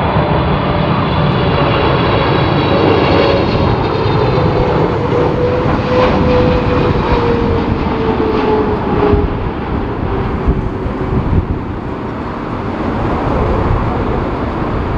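Boeing 777-300ER's twin GE90 turbofans on final approach, passing low by: a loud jet roar with high whining tones that fade in the first few seconds and a hum that glides down in pitch as the airliner goes past. Gusty wind rumbles on the microphone underneath.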